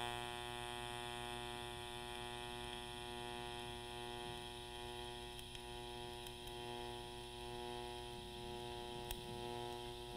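TIG welding arc on a stainless steel tube, held steady while a short bead is run: a quiet, even electric hum.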